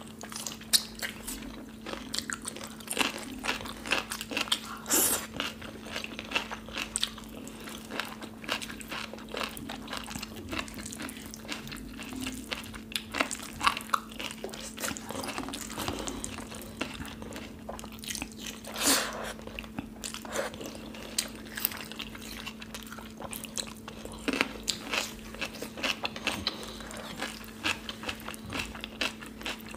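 Close-miked eating sounds of two people eating kadhi pakoda and rice with their fingers: wet chewing, lip smacks and many short clicks, with occasional crunches. A steady low hum runs underneath.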